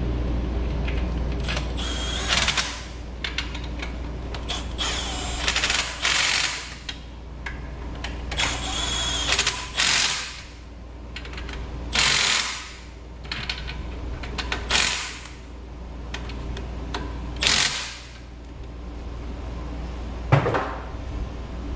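Ratchet wrench with a socket clicking in repeated short runs as the alternator's mounting bolts are tightened down, with pauses between the runs. A steady low hum sits underneath.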